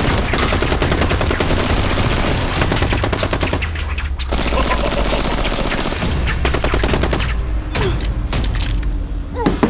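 Rapid automatic fire from Nerf foam-dart blasters in a firefight: a dense run of shots with a short break about four seconds in, then scattered single shots.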